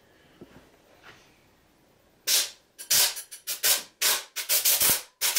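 Compressed-air blowgun blasting short, rapid bursts of air into a swamp cooler motor to blow out dust and debris. The blasts start about two seconds in and come several times a second.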